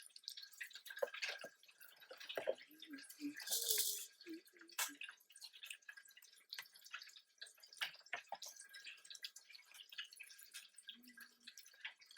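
Close-up chewing and mouth sounds of eating fried chicken and waffles: a run of small wet clicks and smacks, with a brief hissing burst about three and a half seconds in.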